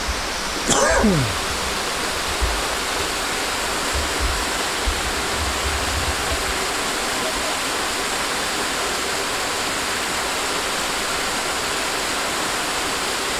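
Small waterfall splashing down a rock face into a pool: a steady, even rush of falling water.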